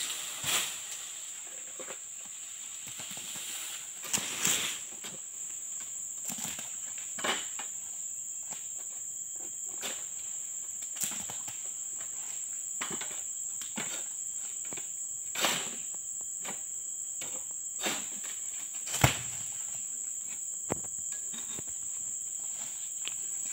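Steady high-pitched insect drone, with scattered sharp knocks and rustles as a manual egrek (sickle on a long pole) is worked in an oil palm crown; the sharpest knock comes about nineteen seconds in.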